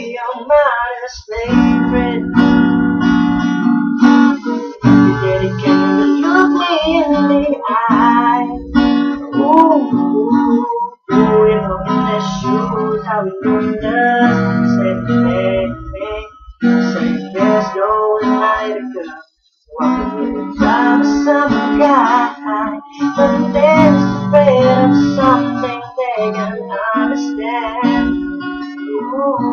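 A young man singing a pop ballad while strumming a cutaway acoustic guitar, the voice gliding over sustained chords. The playing breaks off twice, briefly.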